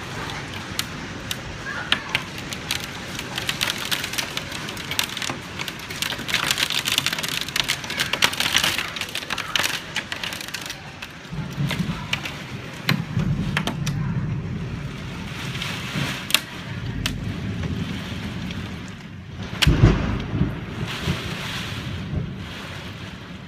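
Hailstorm: a dense hiss of falling hail with many sharp clicks of stones striking, and low rumbling swells about twelve and twenty seconds in.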